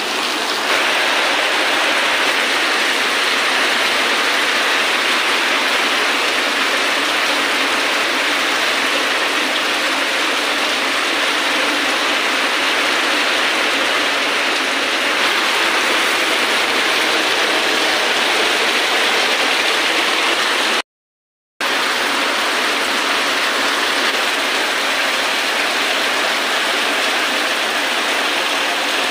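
Steady downpour of rain falling on concrete and puddles, an even hiss of rainfall. It drops out completely for a moment about three-quarters of the way through.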